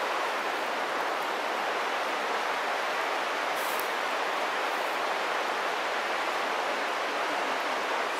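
Little Qualicum River rushing over rocks in a steady, even rush of water.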